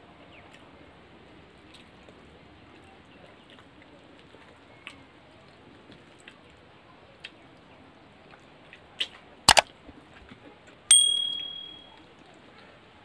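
Faint clicks of hands eating from stainless steel plates, then two sharp knocks about nine seconds in. A second and a half later a piece of stainless steel tableware is struck once and rings with a clear high tone that dies away over about a second.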